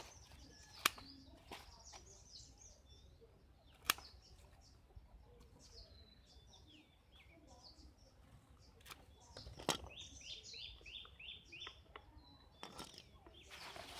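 Small birds chirping in the background, with a run of quick, falling chirps about ten seconds in. Three sharp clicks stand out above them, about one, four and ten seconds in.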